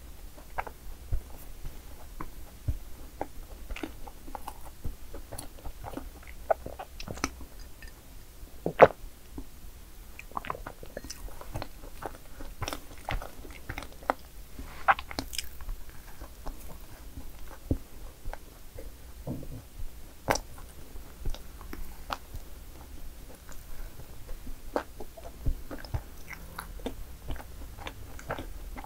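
A person biting and chewing madeleines, with many short crisp crunches and clicks throughout; the loudest crunch comes about nine seconds in.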